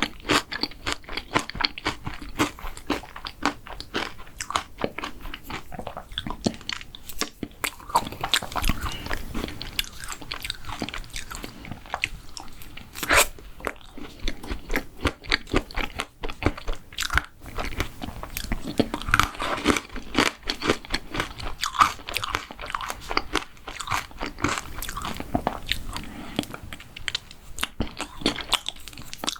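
Close-miked eating of a mint chocolate dessert: steady, irregular crunching, biting and chewing with many small crisp cracks.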